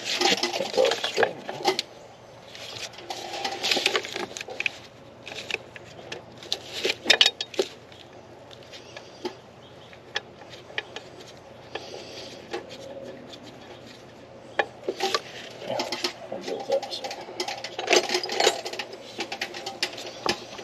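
Hand ratchet and socket clicking, with metal tools clinking and scraping, as the power steering pump bracket bolts are started and run in. The clicks come in irregular clusters, busiest at the start and again near the end.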